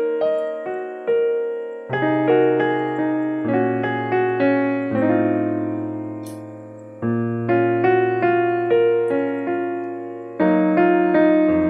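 Background piano music: a gentle melody of struck notes over slowly changing bass notes.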